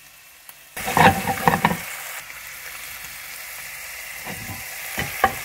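Leaf lard sizzling steadily in a hot frying pan. The sizzle starts abruptly under a second in, with a few knocks and clatter of cookware just after and a couple of clicks near the end.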